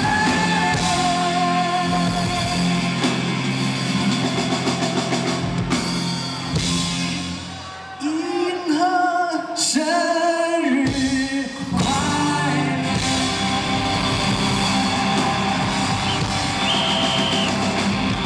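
Live rock band of acoustic and electric guitars with drums playing on after a birthday song. A male voice holds a long sung note at the start. About eight seconds in the backing drops away briefly under a short sung phrase, then the full band comes back in.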